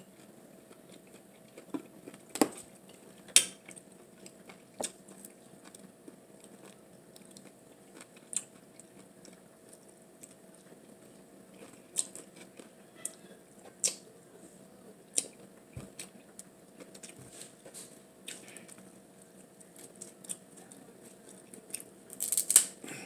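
Close-up eating sounds: scattered sharp clicks and taps of cutlery against a dish, with quieter chewing between them. A faint steady hum runs underneath.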